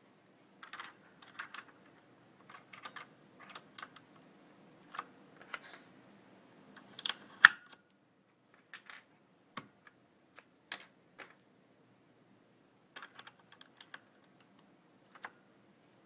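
Plastic keycaps being pushed straight down onto a mechanical keyboard's key switches: a run of irregular clicks and snaps, the loudest a sharp snap about seven seconds in.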